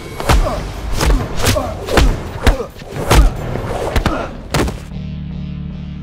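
Fight-scene punch and body-blow hits: about eight heavy thuds in quick succession over the first five seconds. A low, steady music drone then takes over near the end.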